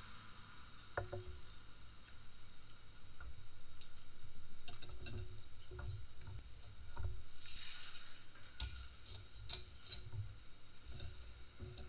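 Scattered light clicks and clinks of chopsticks and spoons against ceramic bowls and glasses during a noodle meal, irregular and a few each second at their busiest, with a faint steady high tone underneath.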